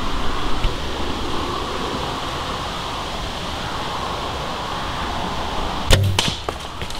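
Steady outdoor hiss, then, about six seconds in, a bow shot: a sharp snap as the arrow is released, followed by a few quick clicks.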